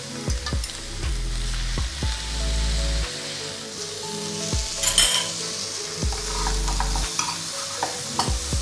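Onion, carrot and leek sizzling in a dry frying pan, with a few sharp clicks and scrapes of a fork against the pan, the loudest about five seconds in. Background music plays underneath.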